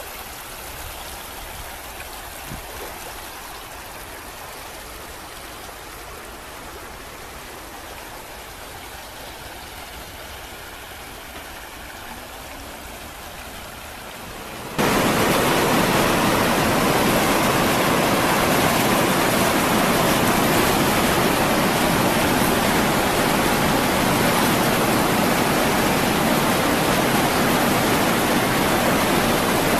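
A shallow creek babbling steadily over stones and small riffles. About halfway through it gives way suddenly to the much louder, steady rush of wide whitewater river rapids.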